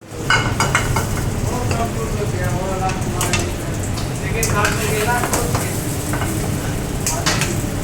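Food sizzling as it fries in a pan while being stirred, with sharp clicks of a utensil against the pan every second or so.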